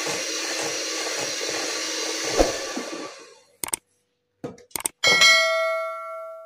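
Electric hand mixer running steadily, its beaters whipping cream cheese and sugar in a glass bowl with a light regular knock, then switched off and winding down about three seconds in. A few light knocks follow, then a sharp clang about five seconds in as the mixer is set down against the glass bowl, which rings on for over a second.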